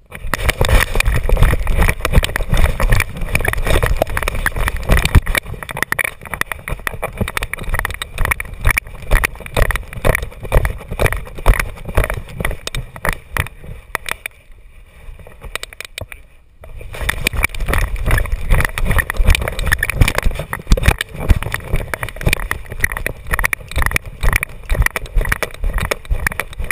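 Loose GoPro HD HERO2 camera mount on a running dog's back, rattling and knocking in a dense, irregular clatter with every jolt: the sign of a loose mount screw. The clatter drops away for about two seconds a little past halfway through, then starts again.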